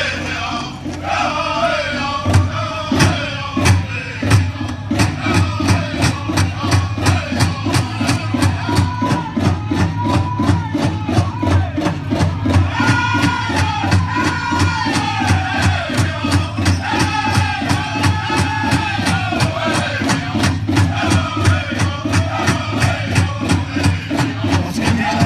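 Powwow drum group singing a fancy shawl contest song, the voices rising and falling over a steady, fast beat on the big drum. The drum beat comes in strongly about two seconds in.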